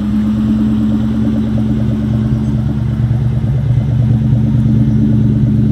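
2003 Mustang SVT Cobra's supercharged 4.6-litre V8 idling steadily through its dual exhaust as it warms up after a cold start, getting a little louder in the second half.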